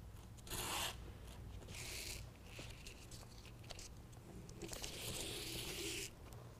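Adhesive backing liner being peeled off a self-adhesive Velcro strip, a ripping, tearing sound in three pulls: a short one about half a second in, another about two seconds in, and a longer one of over a second near the end.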